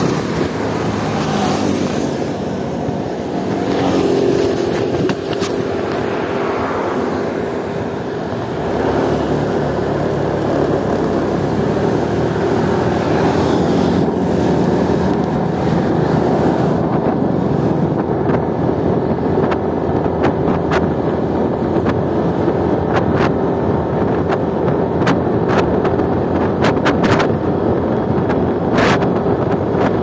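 Motorcycle running at a steady cruising speed on the road, its engine hum steady under wind rushing over the microphone. A few brief clicks near the end.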